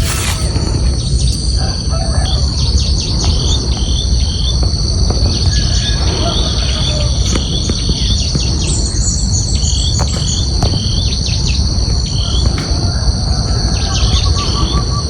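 Outdoor daytime chorus: insects hold several steady high-pitched drones without a break while birds give many short, repeated chirps over them, with a quick trill near the end. A low rumble runs underneath.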